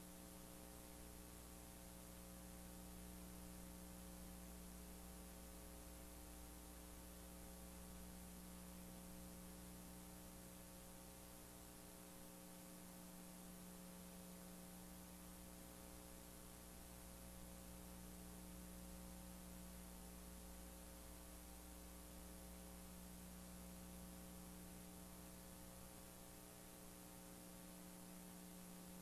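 Near silence: a faint, steady electrical hum with a light hiss underneath, unchanging throughout.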